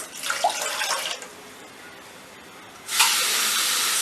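Water being poured into a cooking vessel in two spells: a short splashing pour at the start, then, after a pause, a steady stream near the end that stops suddenly.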